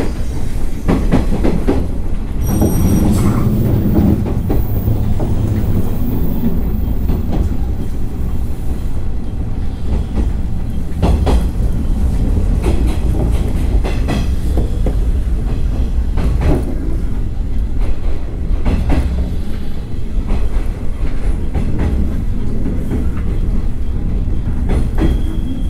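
Cabin sound of a JR 113 series electric train running: a steady low rumble of wheels and running gear, with rail-joint clacks coming through at intervals. A brief high-pitched squeal sounds about three seconds in.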